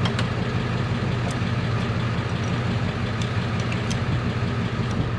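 Steady low drone of a running motor or engine, with a few light clicks scattered through it.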